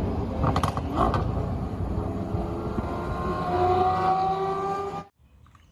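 Race car engine sound, running hard with its pitch climbing slowly, with two brief clicks about half a second and a second in. It cuts off suddenly near the end.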